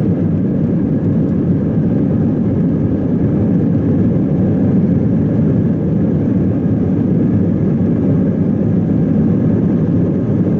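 Steady cabin noise inside an Airbus A319 taxiing: the engines run at an even, low setting with a constant deep rumble.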